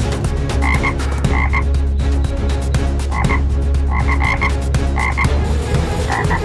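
Frogs croaking over and over, short calls coming in little clusters of two or three, over a steady low hum.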